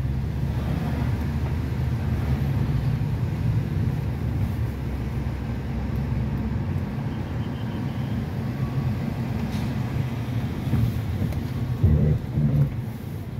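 Car engine and road noise heard from inside the cabin while driving: a steady low rumble, with two louder low thumps near the end.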